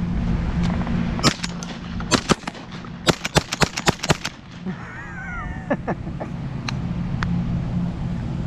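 A rapid volley of shotgun shots, about a dozen sharp reports in under three seconds, several close together, fired at pigeons from more than one gun. A steady low hum runs underneath.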